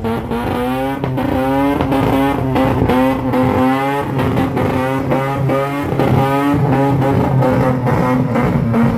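Car engine revved hard and held at high revs, its pitch steady with a slight waver, starting to drop right at the end.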